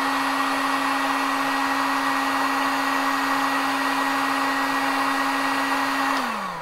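Heat gun running steadily, an even rush of air with a steady fan hum, as it shrinks heat-shrink tubing over soldered wires. About six seconds in it is switched off and the hum falls in pitch as the fan winds down.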